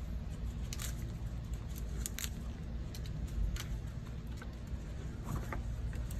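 Foliage and flower stems rustling, with a few short crackles and clicks, as rose stems are pushed into a vase arrangement of greens. A steady low hum runs underneath.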